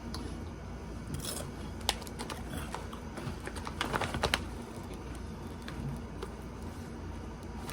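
Doritos tortilla chips crackling: irregular, crisp little clicks and crunches, a cluster of them about four seconds in.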